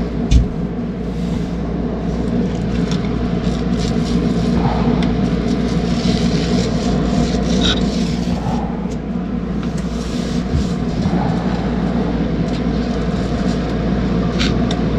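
Steady machine hum that holds one unchanging pitch throughout, with scattered light clicks and taps over it.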